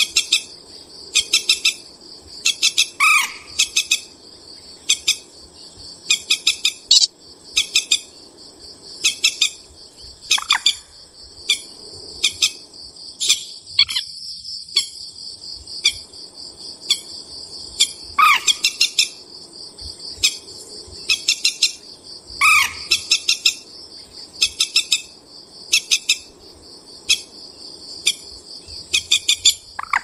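Bird calls: short bursts of rapid, clicking rattle notes repeated about once a second, with four louder falling whistled notes, over a steady high insect trill. The sound drops out briefly about halfway through.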